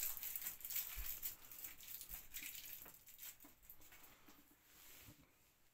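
Sweet wrapper crinkling as a wrapped candy is unwrapped by hand, a faint crackle that thins out and fades about three seconds in.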